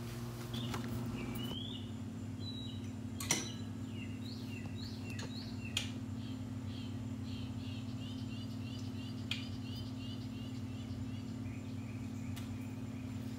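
A songbird chirping in a quick series of short rising notes, about two a second, then a softer trill near the end, over a steady low hum, with a few sharp clicks.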